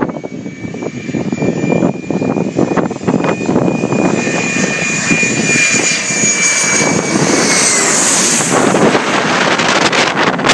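Landing airplane coming in low and passing overhead. A steady engine whine drops in pitch around seven to eight seconds in as the plane goes by, under a rush of engine noise that grows and is loudest about eight seconds in.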